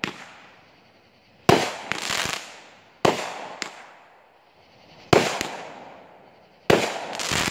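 Aerial fireworks going off: four sharp bangs, roughly one every one and a half seconds, most followed within half a second by one or two smaller cracks, each fading out over about a second.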